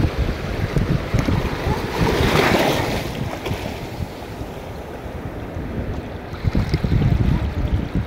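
Sea waves washing against shore rocks, with one wave surging louder about two to three seconds in, under wind buffeting the microphone.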